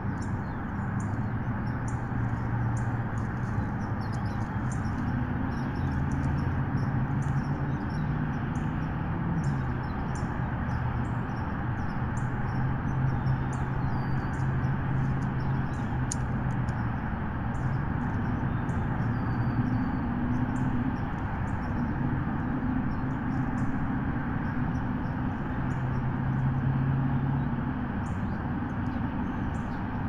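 Steady outdoor background from a nest-camera microphone: a continuous hiss with a low hum that shifts in pitch now and then, dotted with many faint, short, high chirps or ticks.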